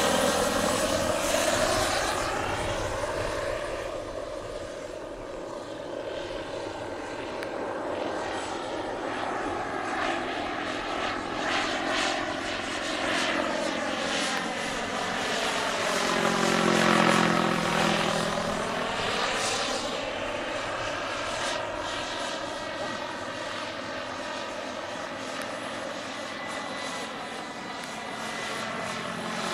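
Turbine-powered scale model Eurocopter H120 Colibri helicopter flying: a continuous turbine whine with main-rotor noise. The pitch of the whine slides down and up again as it manoeuvres, and it is loudest about halfway through.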